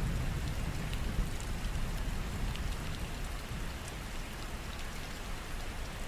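Steady rain with scattered drop ticks and a low rumble of thunder dying away, the whole slowly fading.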